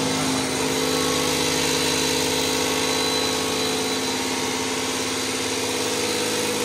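Bosch diesel injection-pump test bench running, its drive spinning a tractor's fuel injection pump mounted on it for calibration: a steady mechanical hum with constant tones and no change in speed.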